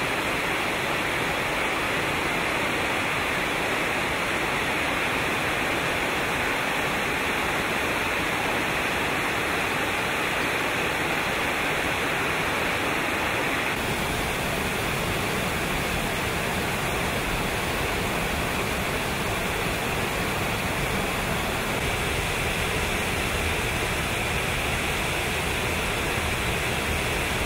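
Brasstown Falls: water rushing steadily over rock ledges and cascades. About halfway through, the sound shifts to a different drop with more low rumble.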